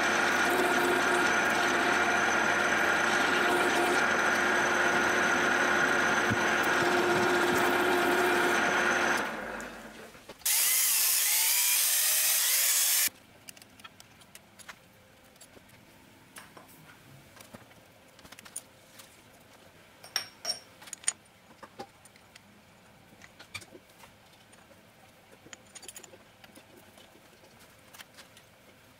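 Milling machine spindle running with an end mill cutting aluminium soft jaws, a steady whine with a few steady tones, winding down about nine seconds in. Then a loud hiss for about two and a half seconds that cuts off suddenly, followed by quiet, scattered small metallic clicks and taps as a hex key fits the soft jaw to the machine vice.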